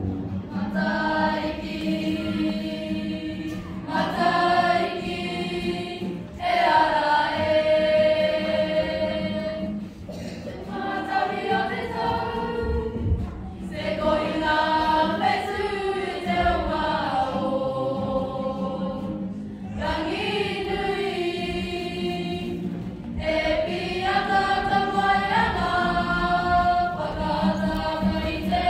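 A group of women singing together in sung phrases a few seconds long, with no instruments heard.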